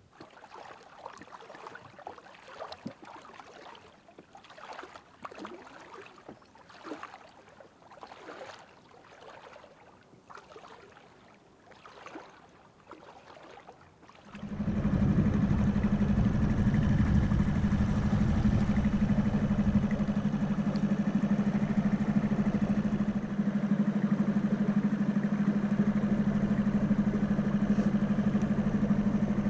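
Faint splashing steps in shallow water, about one a second. About halfway through, a small Suzuki outboard motor on an inflatable dinghy starts abruptly and runs steadily at low speed.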